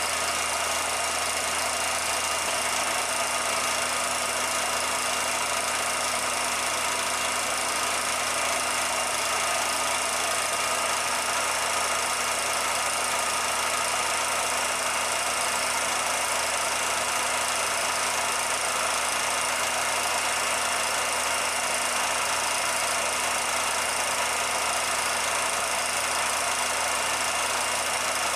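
Steady, unchanging machine-like hum and hiss with a few constant tones in it and no events.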